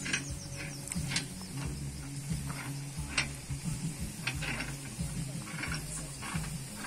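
Electric winch on the front bumper of a Willys jeep running under load as it reels in its rope, a steady low motor hum with irregular clicks and scrapes from the gears and drum.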